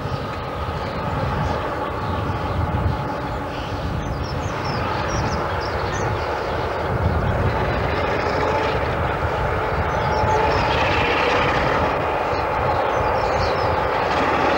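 Class 47 diesel locomotive's Sulzer twelve-cylinder engine working under power while hauling a freight train, a steady engine note that grows louder as the locomotive draws nearer. The exhaust shows the engine is under load.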